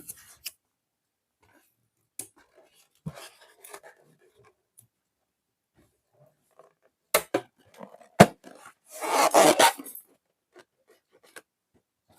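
Slime and balloon play: scattered soft crackles, then two sharp snaps about a second apart, the second the loudest, followed by about a second of squishy crackling.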